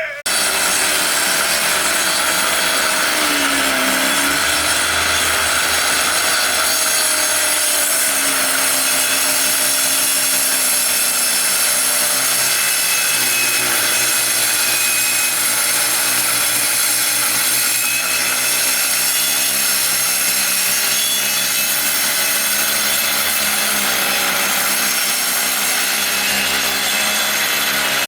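A woodworking power saw runs steadily while cutting wood, its motor note dipping and recovering now and then under load.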